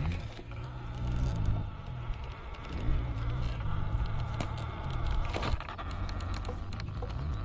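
Electric motor and gearbox of an RC 4x4 crawler whirring, the pitch sliding up and down as the throttle changes, with scattered clicks and knocks.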